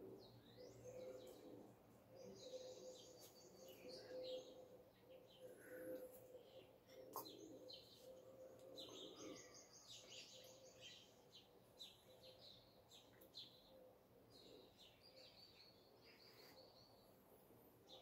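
Faint dawn chorus of small songbirds, with scattered chirps and several rapid trills, over a steady low hum. A single sharp click comes about seven seconds in.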